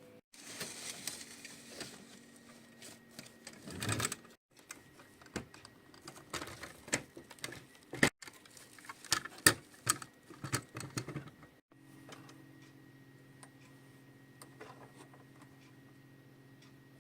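Irregular small clicks, taps and rattles of diecast toy farm vehicles being handled on a hard surface, in several short pieces. After about twelve seconds the clicks thin out and a faint steady hum is left.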